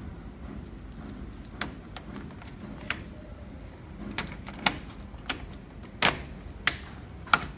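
Metal clicks and clinks of a key and door lock cylinder being handled and fitted into a door: about a dozen sharp, irregular clicks, the loudest near the end.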